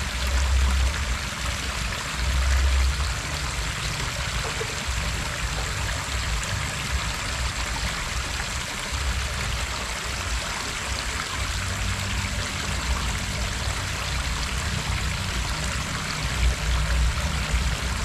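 Water running over a small concrete irrigation weir and down a shallow rocky river, a steady rushing hiss. A few low rumbles stand out near the start and again near the end.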